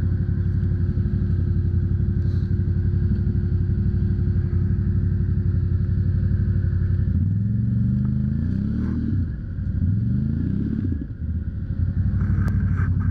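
ATV engine idling steadily, then revved up and down twice about seven seconds in before settling back to idle, as the stuck machine tries to back off a branch wedged in its suspension.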